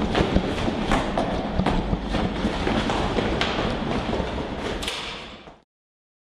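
Dense clattering and knocking over a steady low rumble, fading out to silence near the end.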